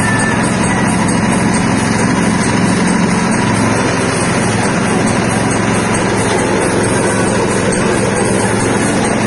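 Stainless-steel wet soybean skin-peeling and separating machine running steadily: a constant motor hum under a dense, even rushing noise, with no change in speed.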